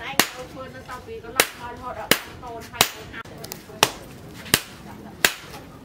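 Hand hammer forging a red-hot machete blade on an anvil: seven sharp blows, roughly one every three-quarters of a second.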